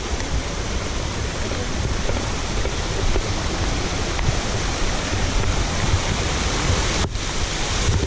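Water running over rock slabs and spilling into a pool at a small waterfall, a steady loud rush, with wind rumbling on the microphone. The sound drops out for an instant about seven seconds in.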